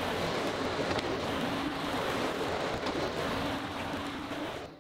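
Tracked skid-steer loader running as it works a sawdust pile: a steady rushing noise with a faint engine hum, fading out in the last half-second.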